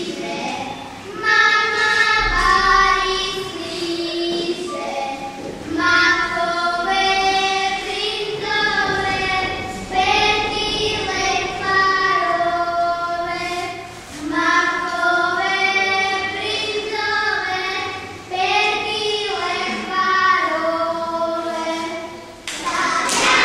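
Two young girls singing a song together in high children's voices, phrase by phrase, with short breaks for breath between phrases.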